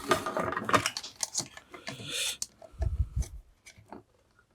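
Light clicks, scrapes and small knocks of metal and plastic parts being handled, as test probes are put onto the open soldering station power supply's switch and fuse-holder contacts; it goes quiet near the end.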